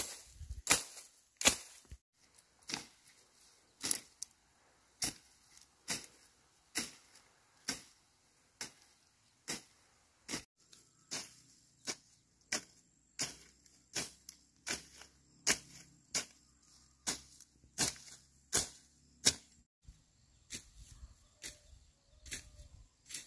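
Repeated sharp chopping strikes, steady at about one a second and coming a little faster near the end.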